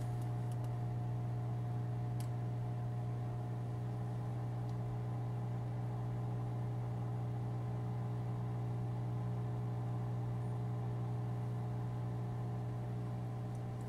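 Steady low electrical hum with several overtones from running aquarium equipment, with a faint click about two seconds in.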